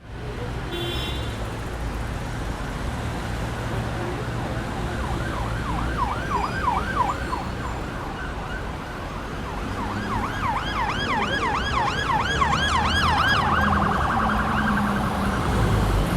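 Emergency vehicle siren in a rapid yelp, sweeping up and down about four times a second over a steady low traffic rumble. The siren comes in about five seconds in, drops out, and returns louder from about ten seconds.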